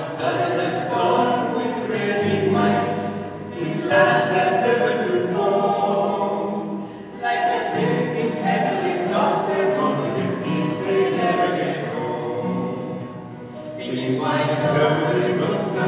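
A small group singing a song together in sung lines a few seconds long, with an acoustic guitar strummed along.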